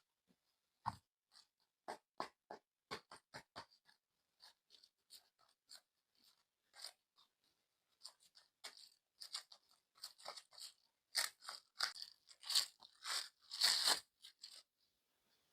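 Clay packaging being handled and opened by hand: a string of short crinkly clicks and crackles, sparse at first, then coming faster and louder in the second half.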